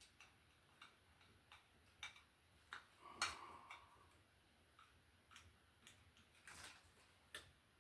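Faint, irregular clicks and taps of small metal electrical hardware being handled, with one louder knock about three seconds in.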